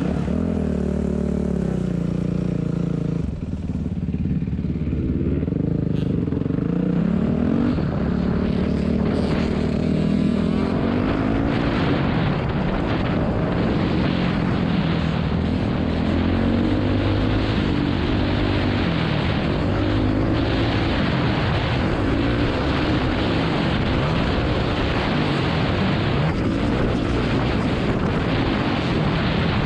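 Dirt bike engine heard on board as it pulls away from a stop and accelerates, its pitch climbing and dropping again several times through the gear changes. A steady rush of wind noise comes in after about ten seconds as the speed rises.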